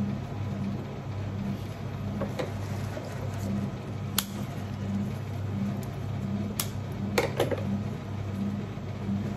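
Scissors snipping eucalyptus stems: a few sharp snips, one about four seconds in and two or three more a little later, over a steady low hum that pulses about twice a second.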